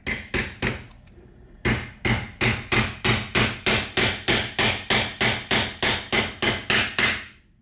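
Hammer tapping a steel dowel pin into the shift lever block on a T5 transmission's shift rail, metal on metal. Three taps, a pause of about a second, then a steady run of about four blows a second that stops near the end.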